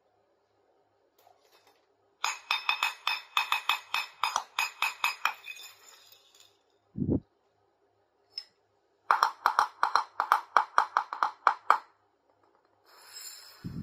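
Small plastic toy kitchen pieces clinking in two runs of rapid, even taps, about five a second, each with a light ring. A single low thump comes between the runs, about seven seconds in.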